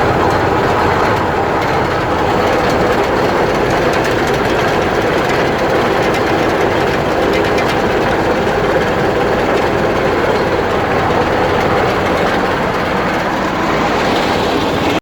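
Vehicle running with a steady drone and a repeated knocking from the drivetrain, which the owner suspects is the driveshaft (cardan shaft).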